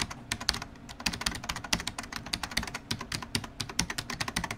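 Rapid, irregular key clicks of typing on a computer keyboard, several strokes a second.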